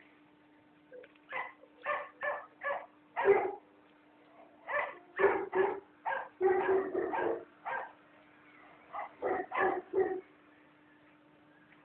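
Pet dog barking repeatedly in three quick bouts of short barks, with a faint steady hum underneath.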